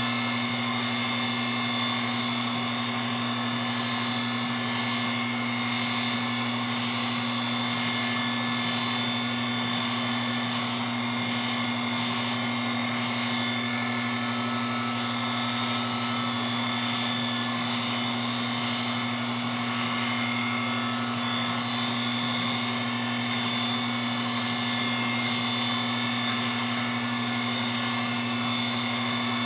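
Surface grinder wet-grinding a steel ball-nut shim spacer on its magnetic chuck: a steady low motor hum under the high, even whine of the abrasive wheel on the steel.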